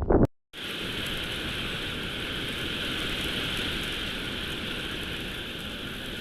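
Steady rain falling, an even hiss. At the very start, wind buffeting on the microphone cuts off abruptly.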